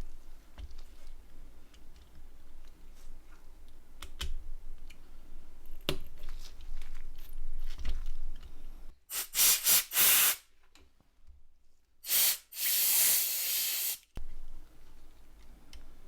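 Faint clicks and taps of small parts being handled, then a hissing spray of air in short bursts: three quick bursts, and about two seconds later one longer burst of about two seconds that cuts off sharply.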